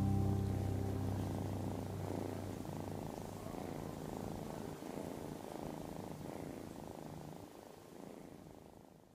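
Kitten purring steadily while being stroked, fading out gradually toward the end. The last note of the preceding banjo music rings away in the first second.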